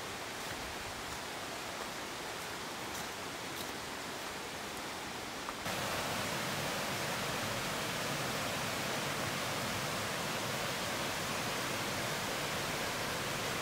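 Mountain stream rushing past in a steady wash of water noise, which gets louder a little under six seconds in.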